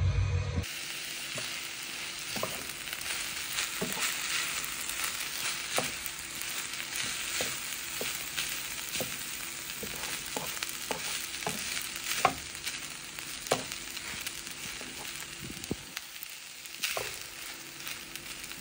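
Fried rice sizzling in a hot pan, a steady hiss, while a cooking utensil stirs it, scraping and tapping against the pan now and then.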